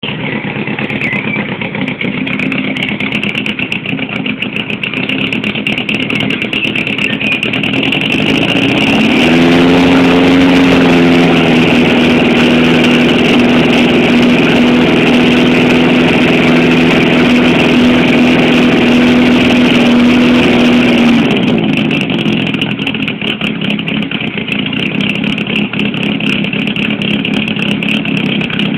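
VW Golf Mk1 rally car's 1.6-litre 8-valve four-cylinder engine, standing still. It idles, is revved up about eight seconds in and held at a steady high rpm for some twelve seconds, then drops back to idle.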